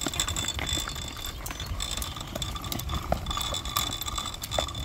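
Folding wagon rolling over concrete pavement, its wheels and frame rattling with many small irregular clicks and ticks over a low rumble.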